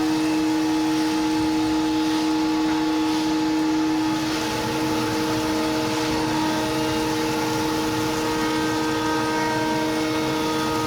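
CNC router spindle running with a steady high-pitched whine over a hiss as it cuts a clear acrylic sheet.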